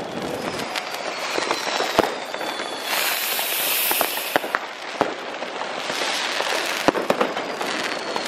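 Fireworks going off: scattered sharp firecracker and rocket bangs, and faint falling whistles. A ground fountain close by hisses as it sprays sparks for about a second and a half around the middle.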